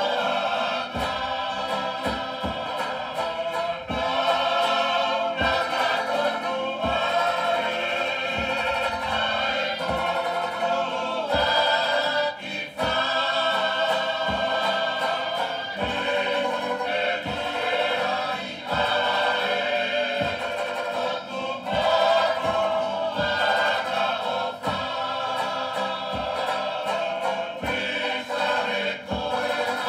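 A Tongan group singing in harmony to accompany a tau'olunga dance, with a steady percussive beat running under the voices.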